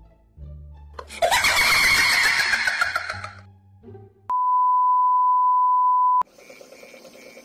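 A steady, loud beep on one pure pitch, held for about two seconds and cut off sharply: the test-pattern tone that goes with a TV colour-bar screen. About a second and a half earlier there is a loud, shrill sound lasting about two seconds, and faint hiss follows the beep.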